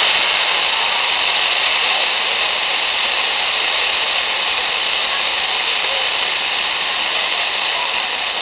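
Ground fountain firework spraying sparks with a steady, loud hiss that eases slightly near the end.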